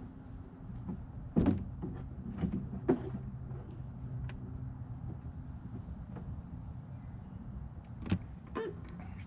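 Clicks and sharp knocks from an electric mobility scooter being handled as its freewheel lever is worked, over a steady low hum. The loudest knock comes about a second and a half in, with others near three seconds and near the end. The scooter had been knocked into freewheel by running over a branch.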